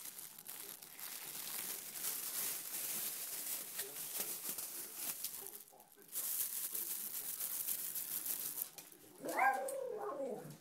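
Rustling and crinkling, broken by a short pause in the middle, then near the end a brief whine from a small dog, falling in pitch, as it waits to be given food.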